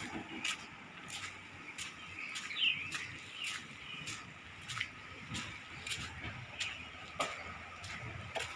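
Footsteps crunching on gravel, about two a second, with a faint steady high hum of outdoor ambience and a single bird chirp about three seconds in.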